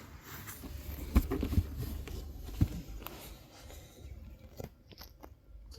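Soft scattered rustles and light clicks of cats shifting about in a basket.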